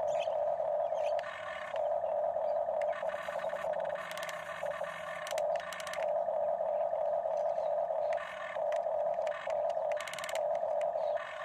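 Huina remote-control toy excavator's electric motors whining as the boom and bucket move. The whine stops and starts in short breaks every second or two, with bursts of clicking and scraping as the bucket digs into the sand, around the middle and again near the end.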